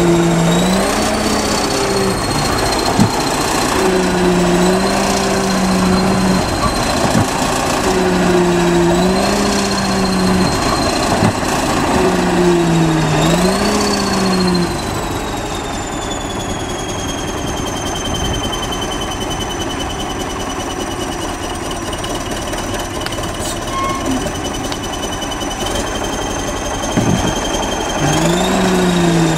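Crawler bulldozer's diesel engine working under load as it pushes brick rubble, with a high whine riding on it. Its pitch rises and falls every few seconds. It then settles lower and a little quieter for a while, and rises again near the end.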